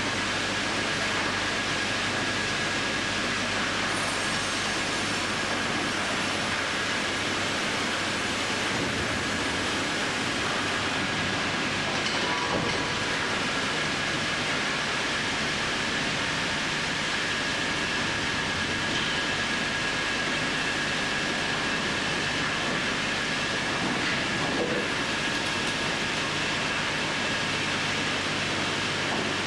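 Industrial bandsaw line machinery running steadily: a constant mechanical din with a steady high whine and a low hum underneath.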